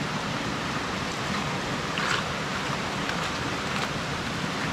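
Steady rushing of a stream running heavy, with a couple of faint clicks.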